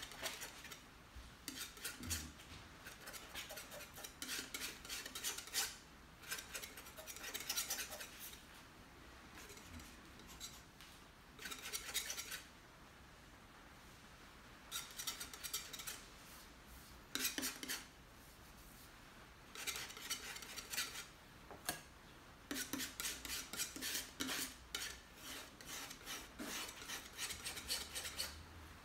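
Paintbrush scratching and scrubbing as paint is mixed on the palette and worked onto the canvas, in scratchy bursts of a second or two with short pauses between.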